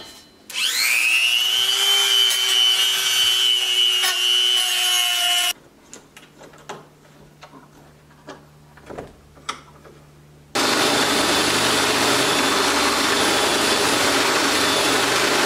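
A drill motor spins up with a rising whine, runs steadily for about five seconds, then cuts off. A few light clicks and knocks follow. About ten seconds in, a handheld power drill bores into steel just under an eighth of an inch thick, a steady grinding noise under load that runs until near the end.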